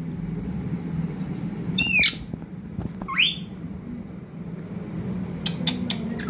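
A green parakeet gives two short shrill squawks, the first sliding down in pitch about two seconds in, the second sliding up about a second later. A few sharp clicks follow near the end, over a steady low hum.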